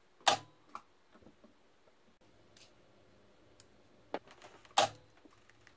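Spot welder firing twice, about four and a half seconds apart: two sharp snaps, each with a brief low hum, as the thin tungsten filament's nickel tab is welded onto its lead. Fainter clicks come in between.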